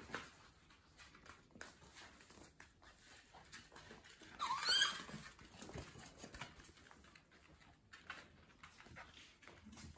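Papillon puppies moving about on a vinyl floor with faint claw clicks and scuffles, and one short high-pitched yelp that rises in pitch about halfway through.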